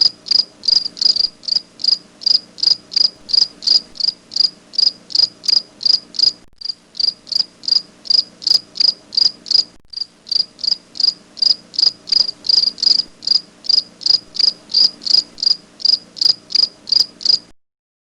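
Cricket chirping: even, high-pitched chirps about three a second, with two brief breaks, cutting off abruptly near the end.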